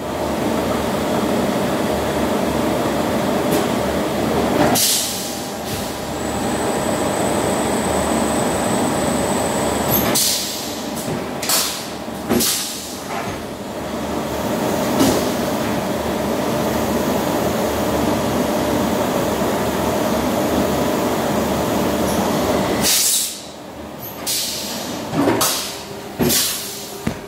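Hyundai SKT21LM live-tooling CNC lathe running, a steady mechanical drone of spindle and machining noise. A high steady whine comes in about six seconds in and stops near ten seconds. Short loud bursts of noise break in several times, and the steady running drops away a few seconds before the end.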